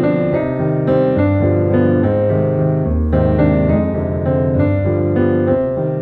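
Background piano music: chords and melody notes played at an even pace over low bass notes.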